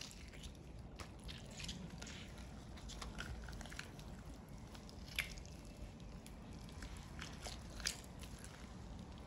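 Juicy roast bucket chicken being torn apart by hand: wet squishing and tearing of skin and meat, with scattered small crackles and two sharper snaps about five and eight seconds in.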